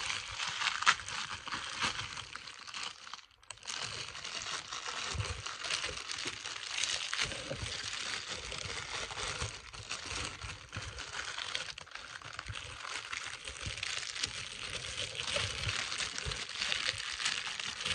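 Clear plastic packaging crinkling continuously as it is handled and pulled open, with a brief pause about three seconds in.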